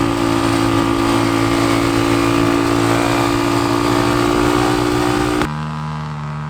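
Dirt bike engine held at steady high revs, then the engine note drops suddenly to a lower, quieter steady note about five and a half seconds in.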